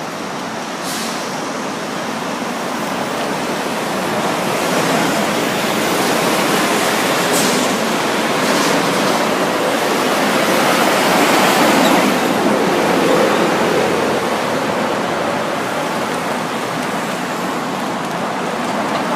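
Road traffic going by on a busy city road, a steady rush of tyres and engines. It swells to its loudest about twelve seconds in as vehicles pass close, then eases off.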